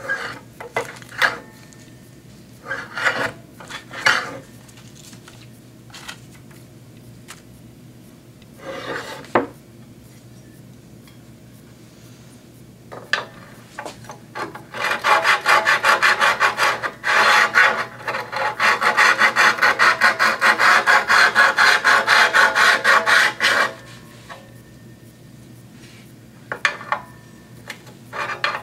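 Diamond hone paddle rubbed along the steel blade edge of a guillotine paper cutter to sharpen it: a few separate scrapes and knocks first, then about nine seconds of quick, evenly spaced back-and-forth strokes in the middle.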